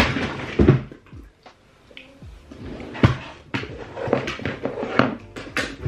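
Makeup products being handled: several irregular knocks and clicks of containers and cases being picked up and set down, with rustling in between.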